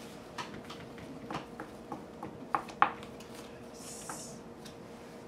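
Playing cards being handled at a table: a run of small clicks and taps, with two sharper ones about two and a half to three seconds in and a brief soft hiss of card sliding about four seconds in.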